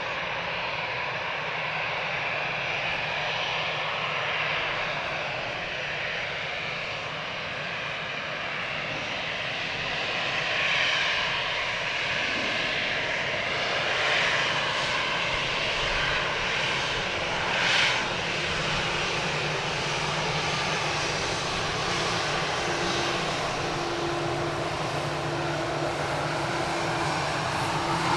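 Airliner jet engines running with a steady rush, swelling briefly a few times.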